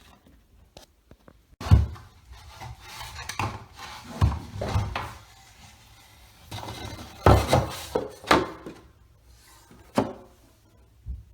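A laminate riser piece being test-fitted on a stair: about five hard wooden knocks, with scraping and rubbing of the board between them.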